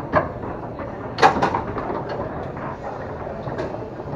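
Foosball being played on a Tornado table: the ball struck and knocked about by the men on the rods, giving a few sharp clacks, the loudest two close together about a second in.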